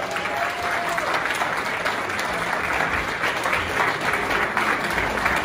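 A roomful of seated dinner guests applauding: dense, steady clapping.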